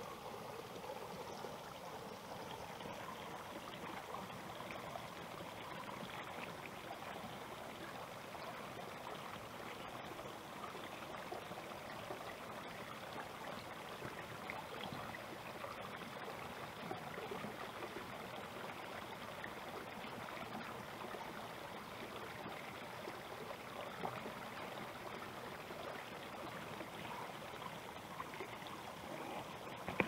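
Small stream of water trickling and splashing steadily.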